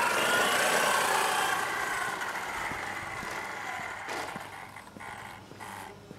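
Traxxas Slash RC short-course truck's electric motor whining as it accelerates, the pitch rising and falling with the throttle, over the rattle of its tyres on paving stones. The sound fades steadily as the trucks drive away.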